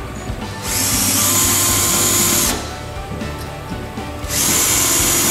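Cordless drill-driver running in two bursts of about two seconds each, driving the two Phillips screws that secure a shower valve escutcheon plate. Background music underneath.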